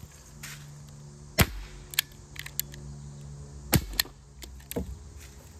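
Air rifle firing BBs: several sharp shots, the loudest about a second and a half in and again near four seconds in, with lighter clicks and knocks between them.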